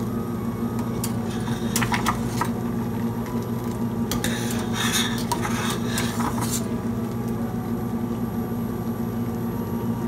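A metal slotted spoon stirring curdling milk and scraping against a stainless steel pot, in a few short scrapes about a second in and a longer run from about four to six and a half seconds. A steady low hum runs underneath.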